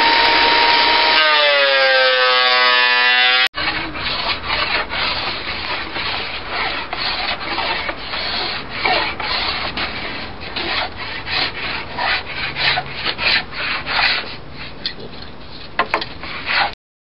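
Benchtop thickness planer running, then spinning down with a falling whine after a pass through hardwood. After a sudden cut, a small hand tool scrapes along the edge of a wooden board in quick, repeated strokes.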